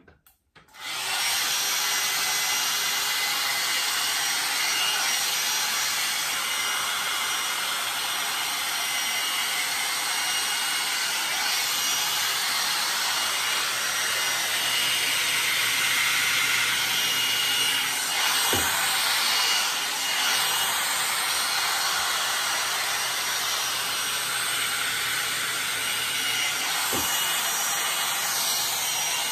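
IKOTE hot-air dryer brush starting up about a second in, then running steadily: a loud rush of blown air with a faint motor whine.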